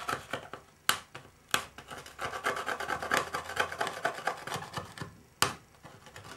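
Thumb and fingers rubbing and scraping leftover PVA release film and resin flashing off a wet polyester chop-strand-mat mould, a quick scratchy rubbing with a few sharp clicks among it.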